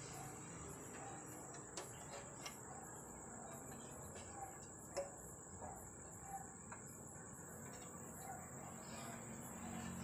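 Faint crickets chirping steadily, with a few light knocks and clicks as a sheet-metal enclosure box is handled; the sharpest knock comes about five seconds in.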